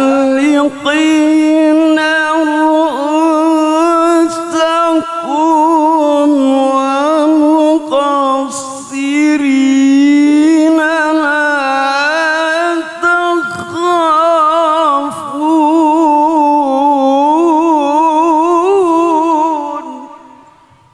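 A man reciting the Quran in melodic tilawah style into a microphone: one long, ornamented phrase held on a single breath with fast wavering turns of pitch, fading out near the end.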